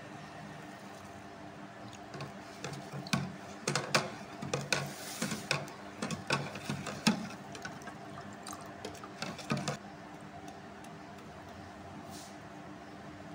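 A metal spoon stirring sugar into liquid in a plastic jug, clinking and knocking irregularly against the sides with some sloshing. It starts a couple of seconds in and stops near the ten-second mark, over a steady low hum.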